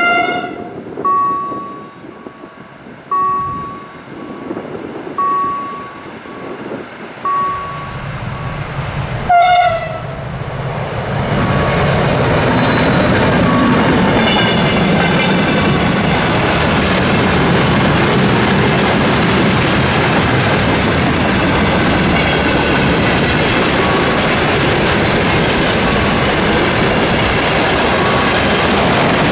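Siemens ER20 diesel-electric locomotive sounds two short horn blasts, one at the very start and a louder one about nine seconds in, over a level-crossing warning signal that chimes about once a second. From about eleven seconds the locomotive and its freight wagons roll past close by with steady wheel-and-rail noise and clickety-clack.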